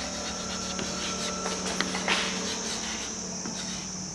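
Steady high-pitched chirring of insects, with a few faint clicks and taps.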